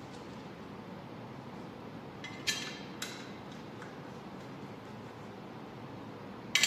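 Light metallic clinks of steel bolts being set by hand into a block stiffener plate on an engine block. There are two clinks about half a second apart midway through and a quick cluster near the end, over steady room noise.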